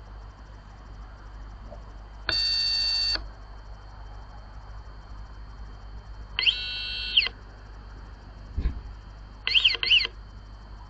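Built-in siren of a Reolink RLC-823A security camera sounding in three short bursts of electronic alarm tone. The first is a steady tone, the second rises and falls, and the third is two quick warbles near the end. A dull thump comes between the second and third bursts.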